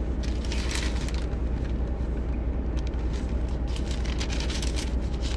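A steady low rumble with scattered light rustling and clicks, the handling noise of looking up a passage.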